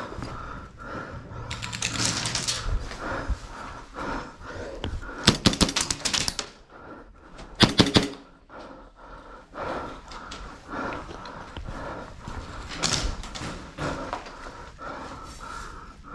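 Airsoft guns firing in quick strings: a rapid burst of about a dozen shots around five seconds in and three more near eight seconds. Scattered knocks and clicks between them.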